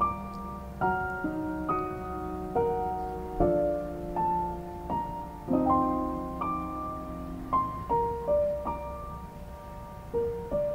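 Background music: a piano piece, notes and chords struck roughly once a second.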